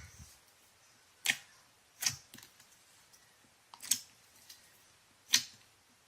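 Glossy slime being squeezed and pressed, giving four sharp clicking pops as trapped air bursts.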